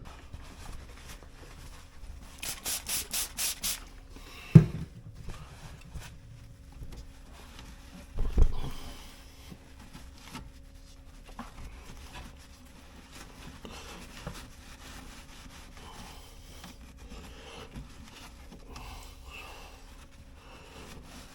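Hand cleaning of a refrigerator's condenser fan and coil area: quiet rubbing and scraping with scattered small clicks. About two seconds in there is a quick run of about eight short hissing bursts. These are followed by a sharp knock and, a few seconds later, a heavier thump.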